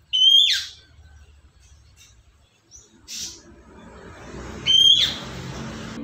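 Pet parrot giving two loud whistled calls about four and a half seconds apart, each a high held note that drops steeply in pitch, with a fainter call between them.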